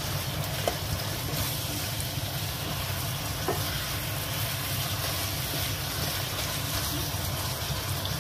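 Chicken strips, bell peppers and onion sizzling in sauce in a nonstick wok as a spatula stirs them, with two light taps of the spatula on the pan, over a steady low hum.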